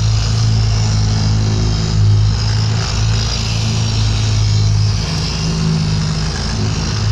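Handheld electric brush tool running as it scrubs shampooed car floor carpet: a steady motor hum with a hiss over it, swelling slightly now and then as the brush is pressed and moved.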